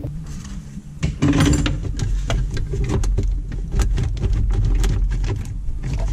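Hand tools working on the starter motor's mounting bolts: irregular metallic clicks and knocks over a low rumble of handling noise, which grows louder about a second in.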